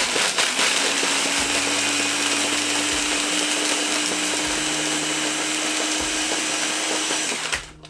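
Ninja blender running, its motor pod held down, crushing ice and blending it with rum, pineapple juice, coconut cream and lime juice into a frozen cocktail. Ice knocks against the jar at first, then a steady whir with a motor hum, cutting off suddenly near the end.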